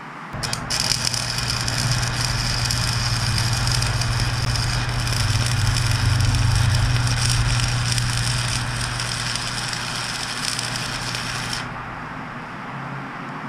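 Wire-feed welder laying a continuous weld bead on a steel grill guard: a steady crackling sizzle of the arc over a low hum. It starts about half a second in and cuts off sharply about twelve seconds in.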